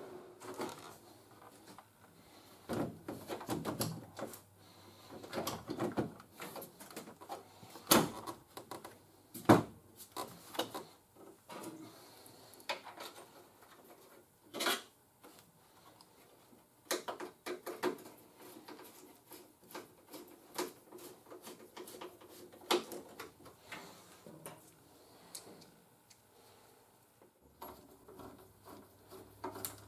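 Irregular plastic clicks, knocks and rattles as a car headlight assembly is handled and fitted into the front end by hand, the sharpest knocks about 8 and 9.5 seconds in.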